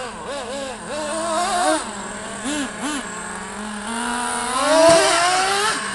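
Small two-stroke nitro engines of radio-controlled trucks, one blipping its throttle in quick rev-ups and drops over a steadier idle. Near the end one revs up long and loud, with a sharp knock at the peak.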